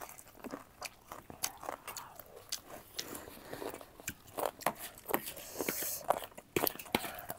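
Close-miked eating: a person biting and chewing crunchy food, with irregular crackles and wet mouth clicks. A short hiss comes about six seconds in.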